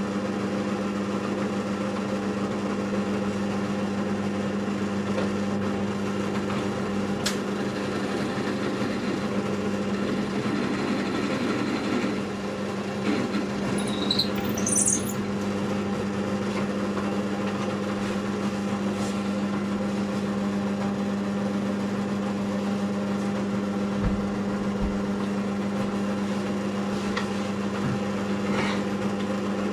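Electric motor of a workshop machine running at a steady hum, with a few light knocks and a brief high squeak about halfway through.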